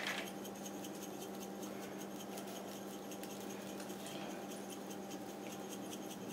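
Faint, quick pattering of dry rub granules shaken from a metal shaker onto raw spare ribs, over a steady low electrical hum.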